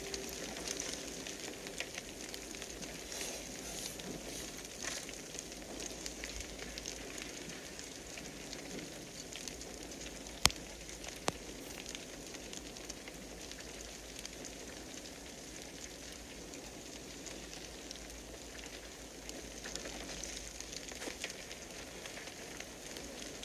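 Steady, low crackling hiss of a burning-fire sound effect, with faint scattered crackles and two sharp clicks about ten and eleven seconds in, the first much the louder.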